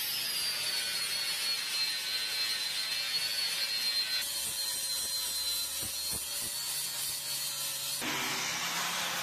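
Angle grinder grinding down the TIG root weld on a 3-inch stainless steel pipe joint. Its high motor whine drops in pitch in the first second as the disc bites into the metal, then holds steady over the grinding noise.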